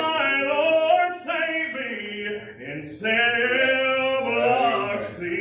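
A man singing a gospel song solo, drawing out long notes, with a short break for breath about halfway through.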